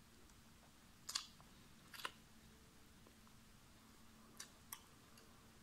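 A piece of roasted chicken being torn apart by hand: two short crackly tears about one and two seconds in, then a couple of faint ticks near the end.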